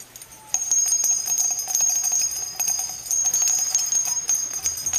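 Jingle bells shaking continuously: a bright, steady jingling with many small clicks, starting about half a second in.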